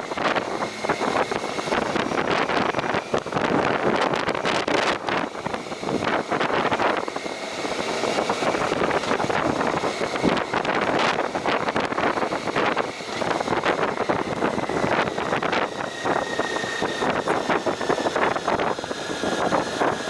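Steady wind rush buffeting the microphone, mixed with vehicle running noise, while riding along a road.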